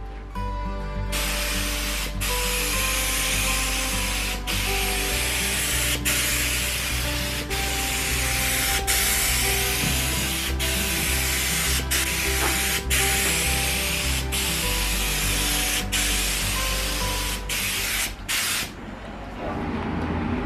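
Compressed-air paint spray gun spraying a car door: a steady, airy hiss that breaks off briefly every second or two as the trigger is released between passes. It starts about a second in and stops shortly before the end. Background music plays underneath.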